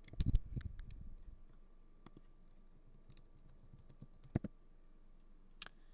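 A quick run of soft clicks and taps on a laptop's keys and buttons in the first second and a half, then two single clicks later on.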